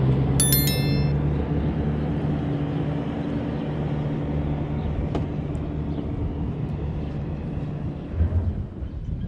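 A farm machine's engine running steadily with a low hum that slowly fades away. A short high-pitched tone sounds about half a second in, and a single click comes about five seconds in.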